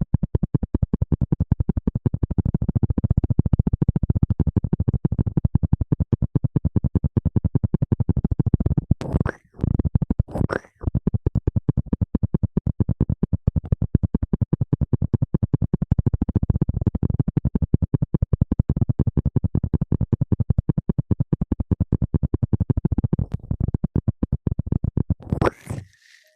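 Fast, rhythmic scratching and rubbing right against the microphone, in ASMR style, with short breaks about nine and ten and a half seconds in and again near the end.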